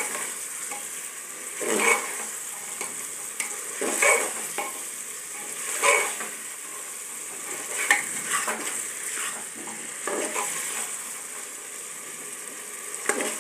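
Steel ladle stirring and scraping mutton curry with tomatoes in an open pressure cooker, over a steady sizzle of frying masala. The louder scrapes come about every two seconds.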